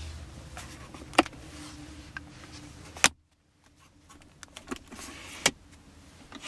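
Plastic clicks and snaps from a 2013 Lexus GS350's rear armrest as its storage compartment lid is worked and its cup holder is pulled out. The sharpest clicks come about a second in and about three seconds in, with a few lighter ones later, over a steady low hum in the car's cabin.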